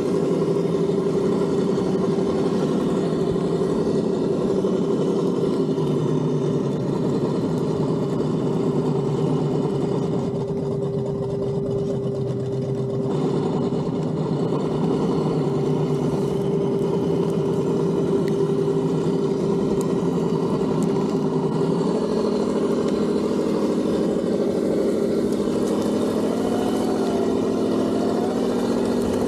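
Sense ESS Dual engine sound simulator on an Axial SCX6 RC crawler, its speaker playing a simulated engine running at low revs with a steady note. After about twenty seconds the pitch shifts and wavers as the throttle changes.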